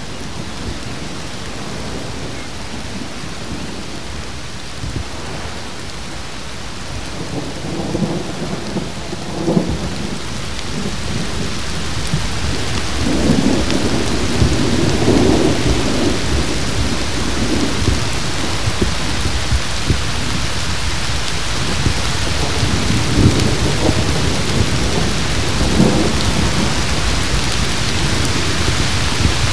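Heavy thunderstorm rain falling steadily, growing heavier about a third of the way in, with several low rolls of thunder rumbling through it.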